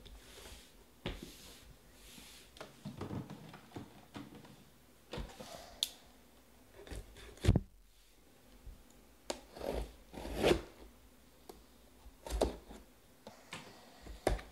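A cardboard shipping case being handled close up: scattered knocks, scrapes and rustles of cardboard, with a sharp knock about halfway through and a longer scrape a little later.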